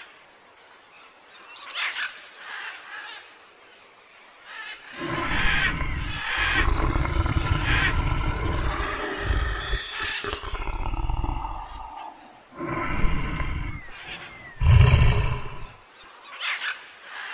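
Deep, rough animal roars in three bouts: a long one from about five to ten seconds in, then two shorter ones, the last and loudest near the end.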